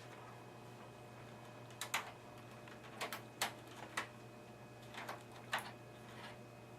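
Sharp plastic clicks and taps, about six spread irregularly over a few seconds, from computer parts and cable connectors being handled and fitted inside a desktop computer case.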